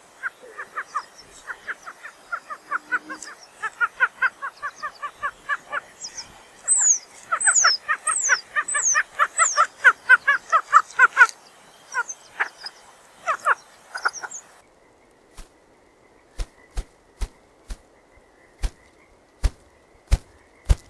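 Ruffed grouse giving rapid runs of short clucking call notes, with a few high, falling whistled notes from another bird partway through. About fifteen seconds in the background drops away and ruffed grouse drumming begins: deep wing-beat thumps, spaced at first and coming faster toward the end.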